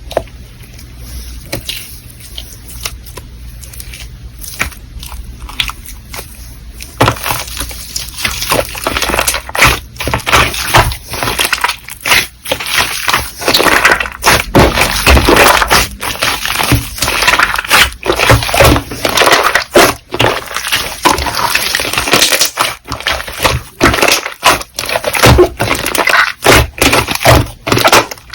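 Slime being squished and pressed by hand, making wet clicks and crackling pops. Light and sparse for about the first seven seconds, then much louder and denser squishing.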